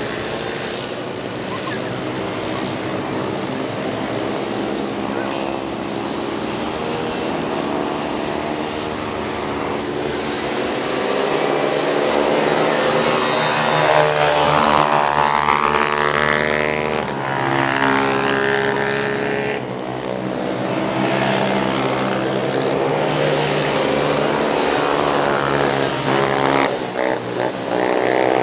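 Racing ATV (quad bike) engines revving up and down as the quads lap an asphalt circuit, the pitch rising and falling with each gear change and corner. The sound swells loudest about twelve to sixteen seconds in as a quad passes close.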